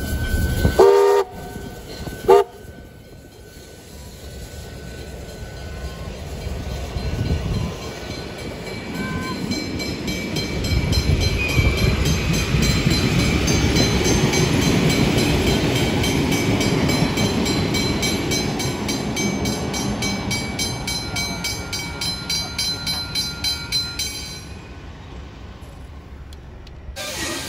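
A train sounds two short warning blasts, then passes close by: a rumble builds up, holds, and fades, carrying a fast regular clatter of wheels over the rails that stops suddenly near the end.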